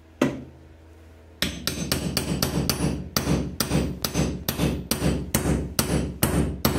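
Hammer striking a steel pry bar wedged against a glued corner support block in a wooden chair frame, driving it in to loosen the block. One strike, then about a second and a half in a quick, steady run of about three to four sharp metallic taps a second that continues until near the end.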